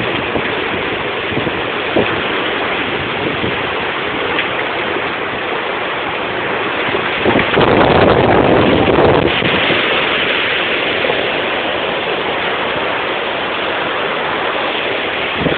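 Storm wind gusting and rain falling, with the wind buffeting the microphone. The strongest gust comes about seven seconds in and lasts about two seconds.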